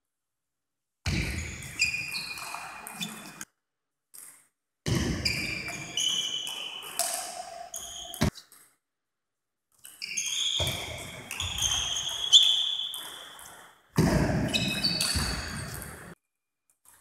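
Table tennis ball clicking off rackets and the table in quick exchanges, each contact a short sharp tap with a ringing ping. The sound cuts out to dead silence several times between stretches of play.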